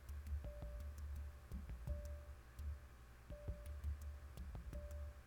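Small Phillips screwdriver driving tiny screws into a laptop's hard-drive bracket: scattered light clicks and low bumps of handling. A short, faint tone recurs about every second and a half.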